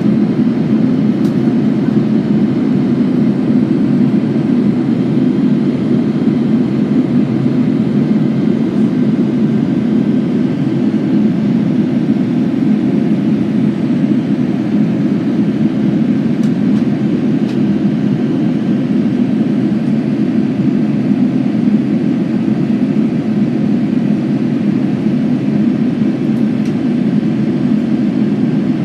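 Steady cabin noise of a Boeing 787-9 Dreamliner in flight: an even rumble of engines and rushing air as the airliner begins its descent from cruise.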